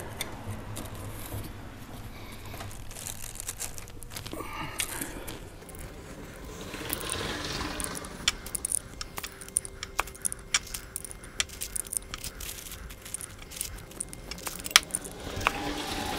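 Handling rustle, then from about halfway a run of sharp, irregular metal clicks and clinks: a hand tool working the bolts loose on an LT4 supercharger's snout.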